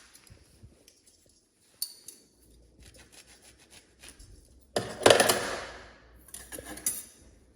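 Metal cutlery being set into a drawer organiser tray: a few light clicks, then one loud rattling clatter about five seconds in, as of a handful of spoons, knives and forks dropped in together, and a few smaller clinks near the end.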